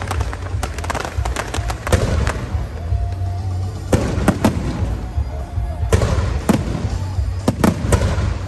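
Fireworks going off in a dense, irregular string of sharp bangs and cracks. The louder reports come about 2, 4, 6 and 7.5 seconds in, over a steady low rumble.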